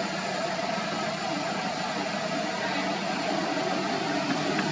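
A steady rushing noise with a faint low hum, unchanging throughout.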